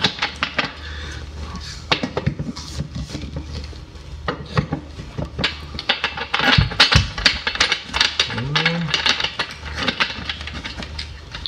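Irregular metallic clicking, clinking and light knocking as a metal table leg is turned by hand and its bolt is hand-tightened into the corner of an IKEA Tärendö table's metal frame. There are a couple of heavier knocks about seven seconds in.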